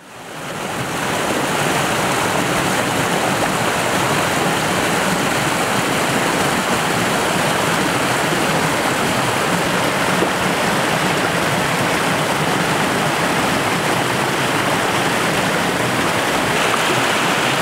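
Shallow rocky stream rushing over boulders and small cascades, a steady, even rush of water that fades in over the first second or two.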